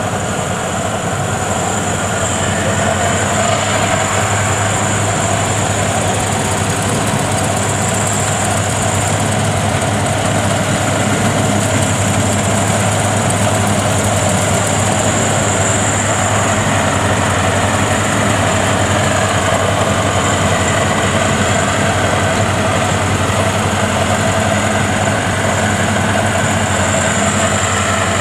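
World WD102Pro tracked rice combine harvester running steadily, engine and machinery giving a constant drone with a high whine over it, as it works through soft, boggy paddy mud.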